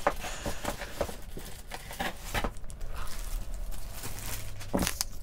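Soft rustling and scattered small clicks of things being handled at a table, with one sharper knock near the end, over a low steady hum.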